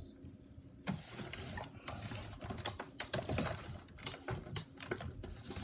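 Irregular light clicks and taps of small plastic toys being handled and knocked together.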